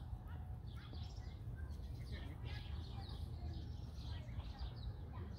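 Small birds chirping and calling, many short quick notes overlapping, over a steady low rumble.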